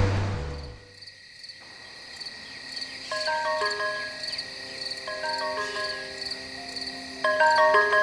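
Crickets chirping in a steady pulsing chorus as the tail of background music fades out, with a short phrase of clear notes repeating about every two seconds.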